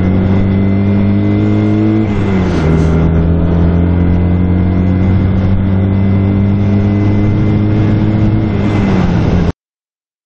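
Motorcycle engine pulling under acceleration, its pitch climbing slowly, with one upshift about two seconds in that drops the revs before it climbs again. The sound cuts off suddenly near the end.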